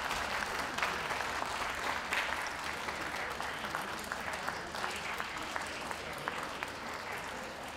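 Crowd applauding with dense clapping that slowly fades.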